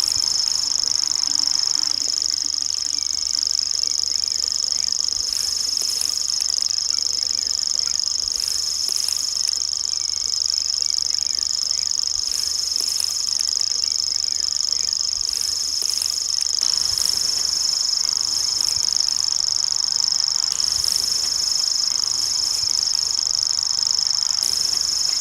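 Common grasshopper warbler (Feldschwirl) singing its reeling song: one steady, high, unbroken trill held without a pause.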